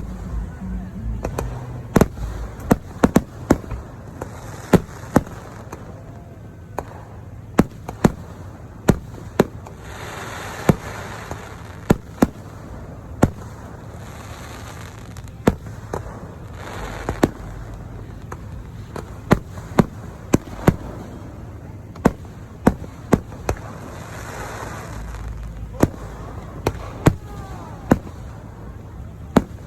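Aerial fireworks display: dozens of sharp bangs from bursting shells at irregular intervals, some coming in quick clusters, with several stretches of hissing crackle between them.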